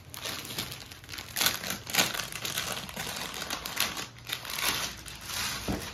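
Clear plastic packet crinkling and rustling as a packed cotton suit is handled and pulled out of it, with a few louder crackles.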